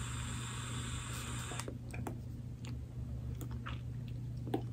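Soft airy hiss of a long draw pulled through an Aspire AVP Cube pod vape with its airflow fully open, stopping about a second and a half in, followed by a few faint clicks and a soft exhale.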